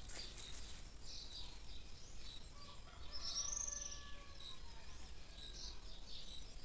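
Wild birds chirping, with many short high calls scattered throughout and one louder, longer call about three seconds in.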